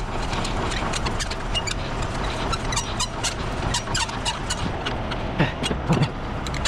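Semi-trailer landing gear being hand-cranked up, the crank and gearbox giving many short irregular metal clicks over a steady low hum.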